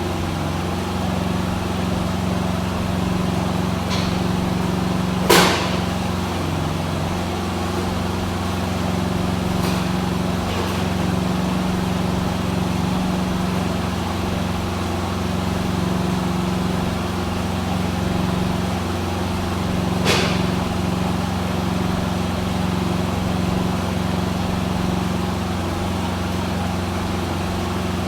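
Harley-Davidson Road Glide V-twin engine idling steadily, with two sharp clicks, one about five seconds in and one about twenty seconds in.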